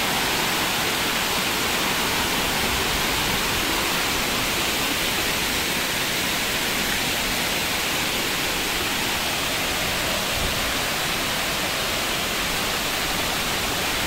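Waterfall's rushing water, a steady, even noise that does not change.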